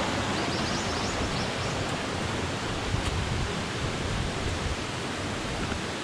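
Steady rushing of a waterfall: an even, unbroken hiss of falling water.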